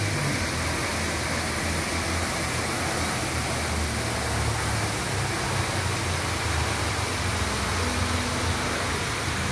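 Steady rush of a park fountain's water spray falling into a pond, with a low, wavering rumble underneath.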